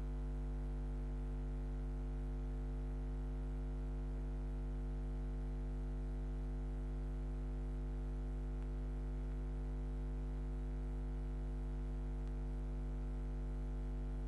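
Steady low electrical hum with a buzzy edge, unchanging; no sound of play is heard.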